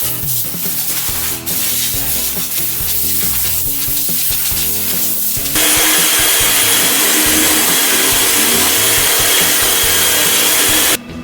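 Power tool abrading car-body sheet metal, rubbing in irregular strokes at first, then from about five and a half seconds in running louder and steadier with a high whine before stopping abruptly.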